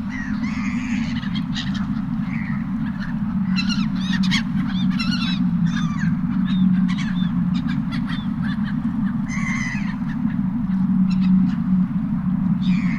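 Seagulls calling over and over in short, arched cries over a steady low drone of a motorboat engine.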